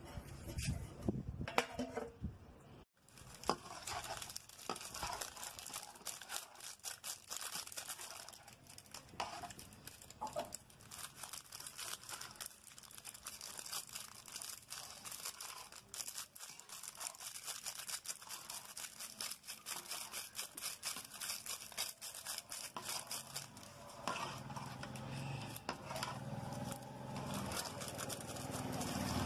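Dense, steady crackling and bubbling of a pot of water and vegetables boiling over a wood fire. A ladle stirs the pot near the end.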